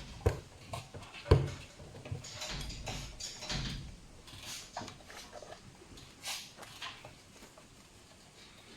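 Young raccoons clambering about a washing machine: scrabbling, rustling and scattered knocks, with two sharp knocks in the first second and a half.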